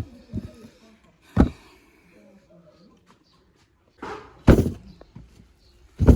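Three heavy thuds, the first about a second in and the other two close together near the end, with faint voices between them.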